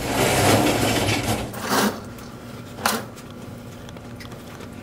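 Scraping and shuffling of people getting up from a table, loudest in the first two seconds, then a single sharp knock about three seconds in.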